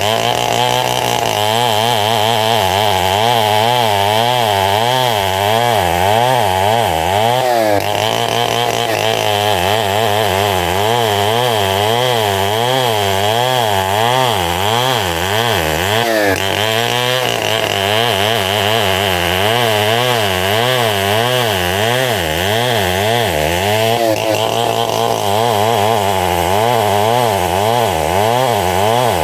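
Engine-driven homemade sawmill running without a break as it saws gmelina wood into boards. The engine's pitch wavers up and down about once a second under the load of the cut, over a steady high whine.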